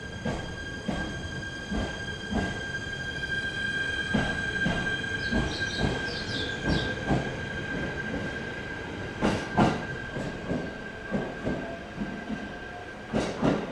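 Electric train pulling out of the platform: its wheels knock over the rail joints again and again, two loud knocks close together about two-thirds of the way through, over a steady high-pitched tone.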